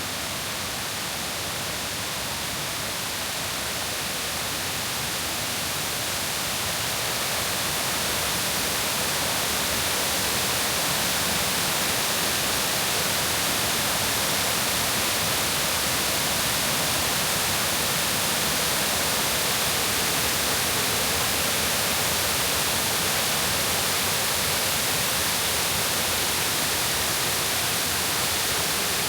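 Rushing water of the Kuang Si Falls limestone cascades: a steady, even roar that grows louder over the first several seconds and then holds.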